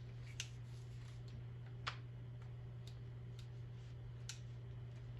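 A few light, sharp clicks and taps, spaced irregularly, from an antique rifle being handled and inspected, over a steady low hum. The loudest click comes about two seconds in.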